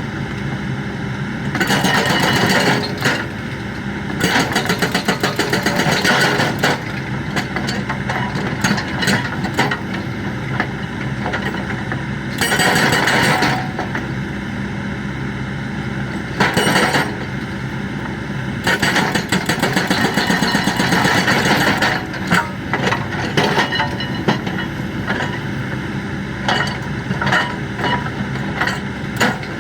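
Hydraulic breaker on a Kobelco excavator hammering in bursts of rapid blows, each a second or a few seconds long, over the steady running of the excavator's diesel engine.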